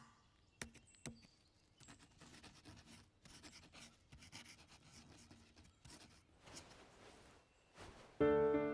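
Quill pen scratching on paper in short, faint strokes, with a couple of light clicks in the first second. Soft music with sustained chords comes in near the end and is louder than the writing.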